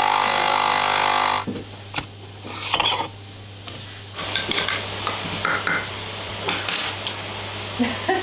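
Capsule coffee machine's pump buzzing loudly as it finishes brewing into a mug, cutting off about a second and a half in. Then scattered clinks of a mug and cutlery on tile, over a steady low hum.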